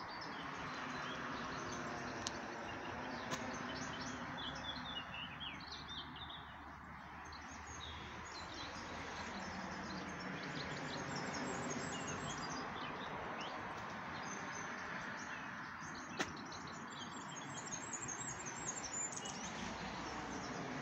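Small birds chirping and twittering, with many short calls throughout, over a steady outdoor background hiss and hum. A single sharp click about three-quarters of the way through.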